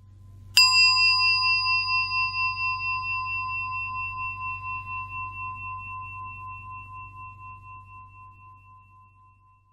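A metal bell struck once, about half a second in, ringing on as a clear tone that wavers and fades slowly for about nine seconds. It marks the close of a section of the chanted reading. A faint low hum lies underneath.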